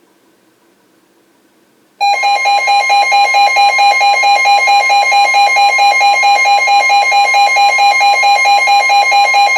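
Emergency weather alert tones starting suddenly about two seconds in: a loud electronic alarm beeping in rapid pulses, about four a second, over a steady high tone, the kind of warning alarm tone NOAA Weather Radio sends before a warning message.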